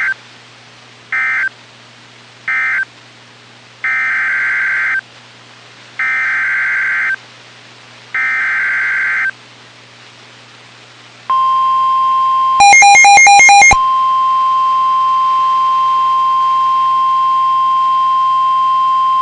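NOAA Weather Radio Emergency Alert System signalling. Three short screeching SAME data bursts (the end-of-message code) are followed by three longer SAME header bursts of about a second each. Then the steady 1050 Hz warning alarm tone starts, with a louder, harsher buzzing blast laid over it for about a second soon after it begins.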